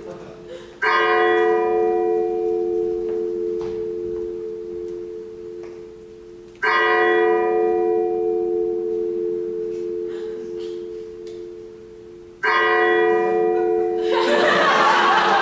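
A bell tolling three times, about six seconds apart, each stroke ringing on and slowly fading. A short rush of noise comes in near the end.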